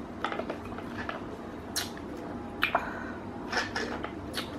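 Someone eating fast food: wet chewing and lip smacks, heard as scattered short clicks and smacks at an uneven pace.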